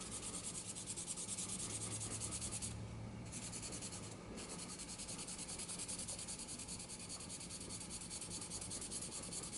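Fine sandpaper on a small sanding stick rubbed back and forth over a vulcanite pipe stem: quick, even, faint scratching strokes, pausing briefly about three and four seconds in. The sanding is taking the oxidation off the stem.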